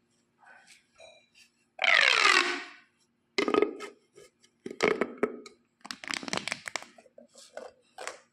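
Plastic pop tubes being stretched and squeezed, giving clusters of sharp crackling clicks, with a sliding tone falling in pitch about two seconds in.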